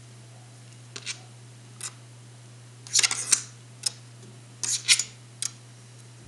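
Short clicks and rustles of thin insulated wires being handled and twisted together by hand: two pairs of UTP network-cable wire. A cluster of louder clicks comes about three seconds in and another around five seconds, over a steady low hum.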